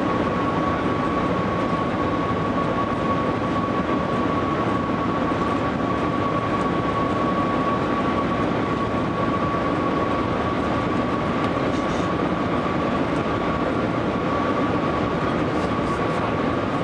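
Cabin noise of the Shanghai Maglev train accelerating from about 400 km/h to its top speed of 431 km/h: a steady, even rush with a thin whine held on one pitch.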